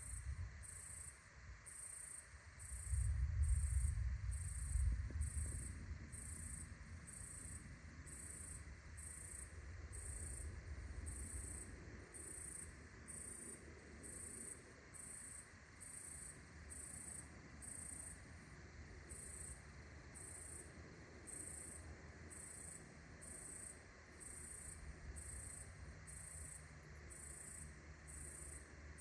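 A cricket chirping in short, even pulses, about four every three seconds, throughout. About three seconds in, a low rumble of distant thunder swells to become the loudest sound, then rolls away over a few seconds, with fainter low rumbling later.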